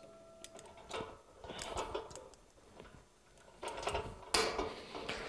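Steel coil tension springs on an ATV snow plow blade being stretched and hooked into place with a hand tool: scattered metal clinks and scrapes, the loudest a sharp clack about four and a half seconds in.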